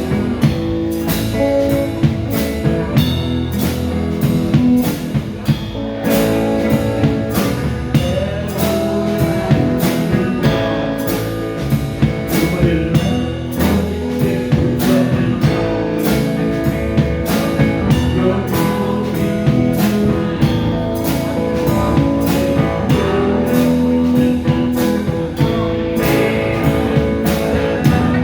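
Band playing a rock-blues jam: electric guitar over a drum kit keeping a steady beat.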